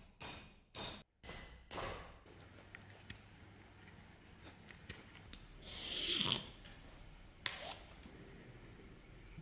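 Leather being worked and handled by hand. A quick run of short rasping strokes comes in the first two seconds, then quieter handling with faint ticks, a louder swish about six seconds in and a sharp click about a second later.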